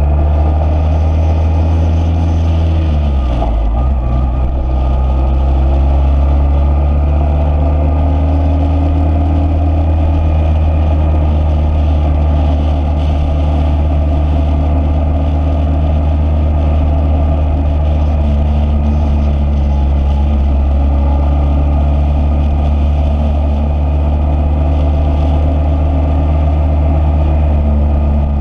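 Motorcycle engine running steadily, its pitch dropping briefly about three seconds in and then coming back up.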